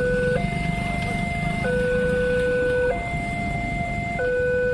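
Railway level-crossing warning alarm sounding from the crossing's pole-mounted loudspeaker. It alternates between a higher and a lower tone about every 1.3 seconds, over a low rumble.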